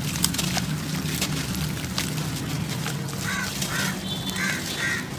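Dry clumps crumbling with scattered sharp crackles over a steady low hum. Four short bird calls come close together in the second half.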